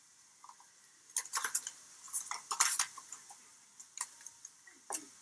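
Faint clatter of a small cup being handled and set on a ledge: a run of quick clicks and rattles about a second in, then single knocks twice more near the end, over a steady hiss.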